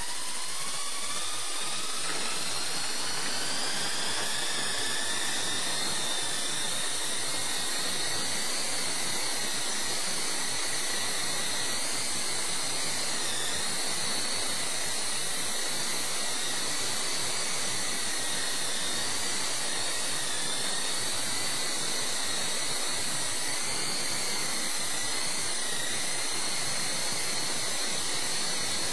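Esky Co-Comanche coaxial electric RC helicopter spooling up, its motor whine rising over the first couple of seconds, then flying with a steady high-pitched whine and rotor hiss that wavers a little as it manoeuvres.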